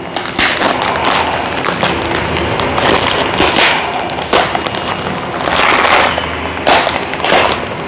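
Clear plastic packaging crinkling and rustling as it is handled and pulled open, a dense crackle of many small snaps that swells and fades several times.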